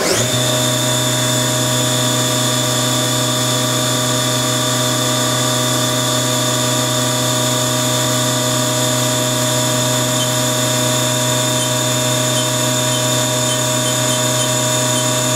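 Spindle of a 2007 Haas Super MiniMill vertical machining center, already warmed up, spinning up right at the start and then running steadily at 7,000 rpm. It gives a steady whine with several high tones.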